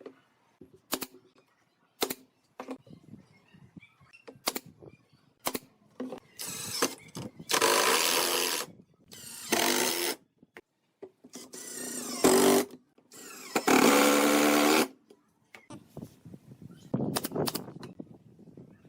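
Handheld power tool run in four short bursts of about a second each, after a run of sharp knocks and taps. More light knocks follow near the end.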